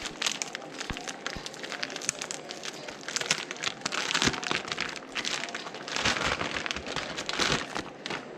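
Irregular clicks and clatter mixed with short rustling, crinkling bursts: parts and tools being handled on a workbench.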